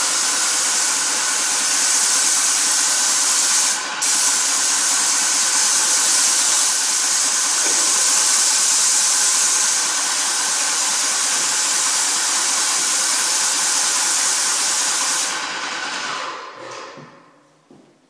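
Paint sprayer spraying: a loud steady hiss that breaks off for a moment about four seconds in, then stops about fifteen seconds in, leaving a fainter tail that dies away.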